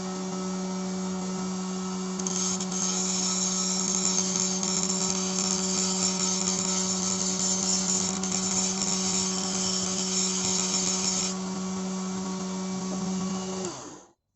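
Homemade flexible-shaft rotary grinder driven by a 775 DC motor, running steadily with a high hum. From about two seconds in to about eleven seconds a brighter, hissing grinding sound rides on top as the bit works on something. The motor is switched off near the end and stops.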